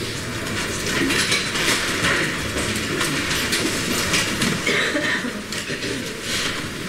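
Large lecture hall full of students at their desks: a dense, uneven hubbub of many low conversations mixed with paper rustling and small knocks and clicks.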